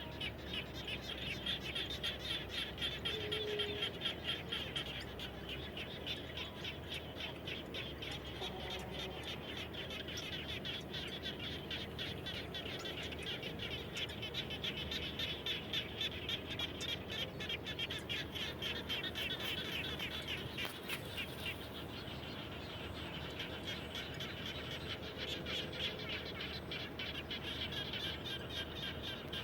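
Chorus of frogs calling after rain: many overlapping calls forming a dense, rapid, continuous pulsing, with a few faint lower calls now and then.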